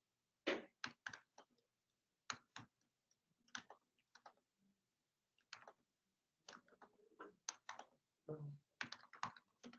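Faint computer keyboard keystrokes: short separate clicks in irregular bunches as a terminal command is typed, coming closer together near the end.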